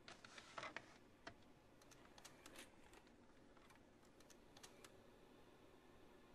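Near silence with faint, irregular clicks and ticks, a small cluster of them about half a second in.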